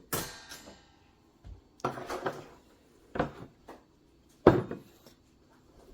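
Four separate clunks and clinks of espresso accessories and a mug being handled and set down, the first a ringing clink.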